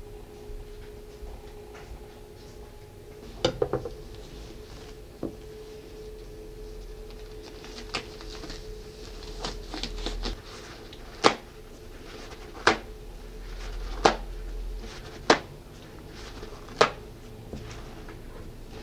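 Kitchen handling noises on a plastic cutting board: scattered light clicks, then five sharp knocks about a second and a half apart in the second half, over a steady low hum.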